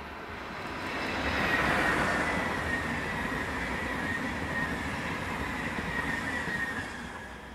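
SBB Re 460 electric locomotive hauling intercity passenger coaches past at speed. The rush of wheels and air peaks as the locomotive goes by about two seconds in, then holds as the coaches pass, with a steady high whine over it, and fades near the end.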